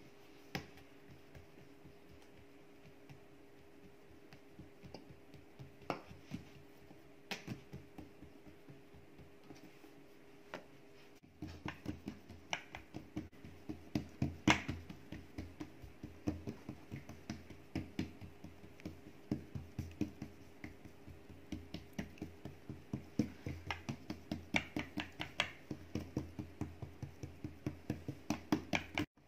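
Fingertips patting and pressing a ball of tortilla dough flat on a countertop: soft taps, scattered at first, then from about the middle on a steady run of about two or three a second.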